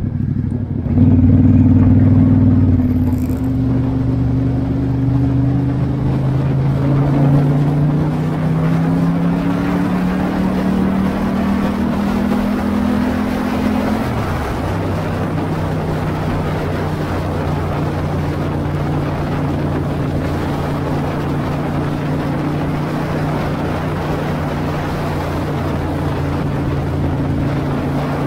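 Ducati XDiavel S V-twin engine pulling under way: it gets louder about a second in, then rises steadily in pitch as the bike accelerates. The pitch drops at a gear change about fourteen seconds in and holds steady after that, with wind rushing over the microphone.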